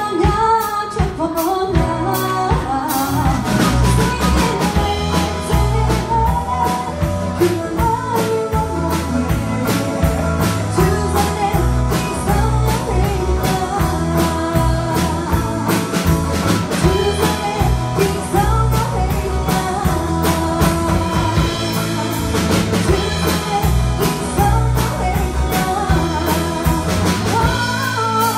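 A woman singing through a microphone with a live band: strummed acoustic guitar, a drum kit keeping a steady beat, and a heavy low end underneath.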